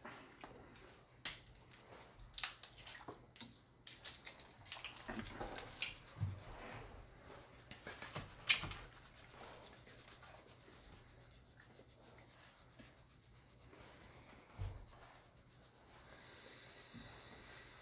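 Hands opening a small hot-sauce sample bottle: rubbing and rustling with a few sharp clicks over the first half or so, then only faint handling noise.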